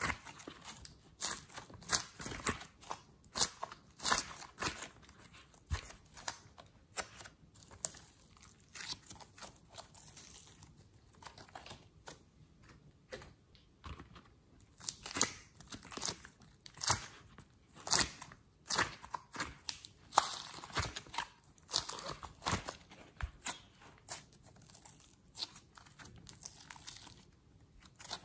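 Hands squeezing, pulling and kneading glossy slime, giving a run of irregular sticky snaps and crackles.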